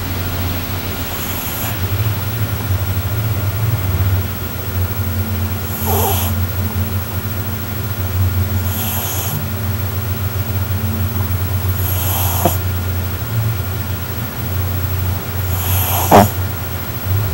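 A pet dog snoring loudly in deep sleep: a steady low rumble with a rasping breath about every three to four seconds, the last one near the end the loudest.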